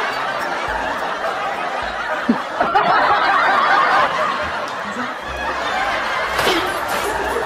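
Several people laughing without a break, a canned laugh track.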